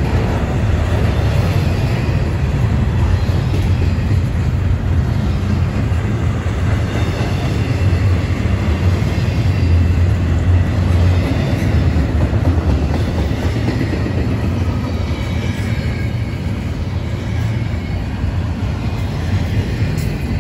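Double-stack intermodal freight train's container-laden well cars rolling past: a steady, loud rumble of steel wheels on the rails.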